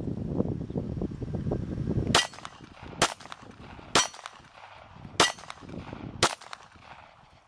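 Cobra CA .380 semi-automatic pistol firing five .380 ACP rounds about a second apart, the first about two seconds in. This is a test fire after the feed ramp was sanded and polished to cure failures to feed and eject.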